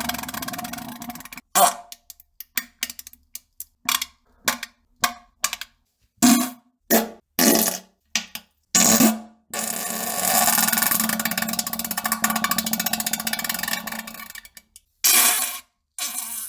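A series of fart sounds, each a buzzing blast at a steady pitch. First comes a quick run of about a dozen short ones, then one long blast of about five seconds, then two more short ones near the end.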